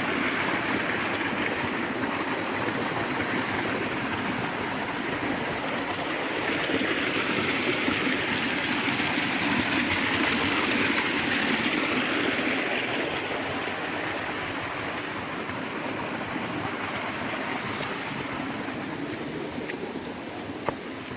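Rushing water of the Little Mashel River, a steady even hiss that slowly grows quieter over the last third. A single sharp click sounds near the end.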